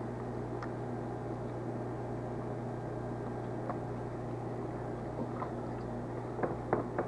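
Steady low hum with hiss, with a few soft clicks scattered through and several close together near the end.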